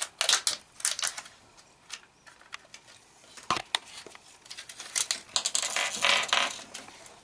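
Foil seal crackling as it is peeled off the plastic half of a Kinder Joy egg, then light clicks, rattles and crinkling as small plastic toy parts are handled on a tabletop. The busiest run comes about five to six and a half seconds in.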